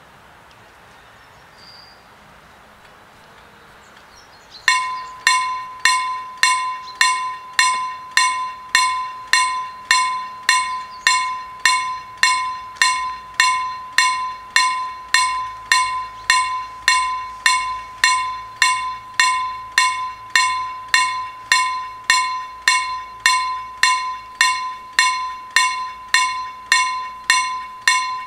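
Railway level-crossing warning bell that starts about five seconds in and strikes in a steady rhythm of roughly two clear, ringing strokes a second, signalling that the crossing has been activated for an approaching train.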